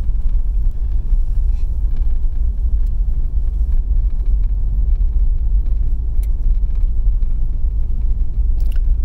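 Steady low rumble of a vehicle driving on a gravel road, heard from inside the cab.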